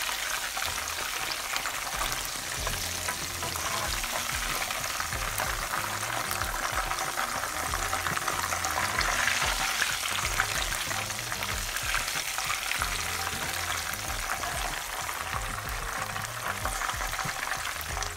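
Coated chicken pieces frying in hot oil: a steady, dense crackle and sizzle, with the sound of stirring in the pan.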